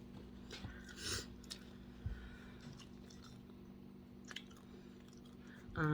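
Quiet close-up chewing of grilled shrimp and avocado salad, with soft wet mouth clicks and smacks.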